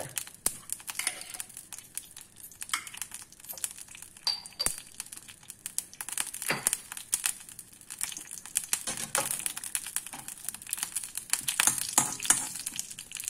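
Mustard seeds popping in hot oil in an iron kadai: many irregular sharp pops over a faint frying sizzle, the stage at which the tempering oil is hot enough for the seeds to burst.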